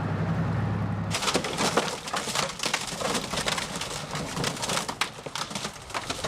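A tank's engine drones steadily for about a second, then gives way abruptly to a loud, irregular clatter of knocks and crackles that lasts to near the end.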